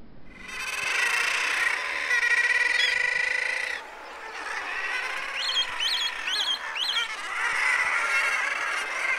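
Seabirds calling loudly: drawn-out, wavering calls for the first three and a half seconds, then after a brief drop more calls with several quick rising chirps around the middle.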